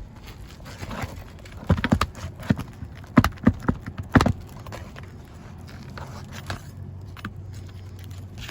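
A quick, uneven run of about ten sharp knocks on an asphalt shingle roof, starting a little under two seconds in and lasting about two and a half seconds, over a low steady background.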